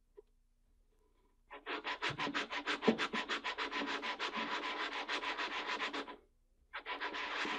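Plastic Arredondo powder bar rubbed back and forth on fine-grit sandpaper in quick, even strokes, smoothing its surface flat. The strokes pause briefly about six seconds in, then start again.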